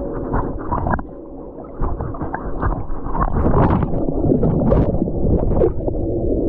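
Microphone handling noise: the camera rubs and knocks against skin and clothing as it is moved about, giving a low rumble with irregular scrapes and bumps. There is a brief quieter moment about a second in.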